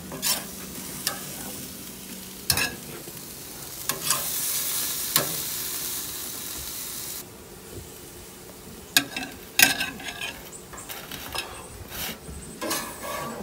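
Marinated bluefin tuna steaks sizzling on hot grill grates, with metal tongs clicking and scraping on the grate as the pieces are lifted off. The sizzle swells louder in the middle and stops abruptly about seven seconds in; scattered sharp clicks follow.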